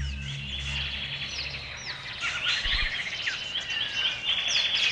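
Birds chirping and calling, many short chirps and quick trills overlapping, with the tail of a low music drone fading out in the first second.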